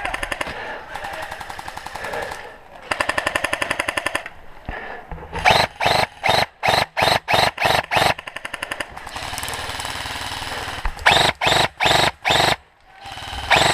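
Airsoft guns firing: fast full-auto bursts in the first few seconds, then a string of separate sharp shots about half a second apart, another burst, and more single shots near the end.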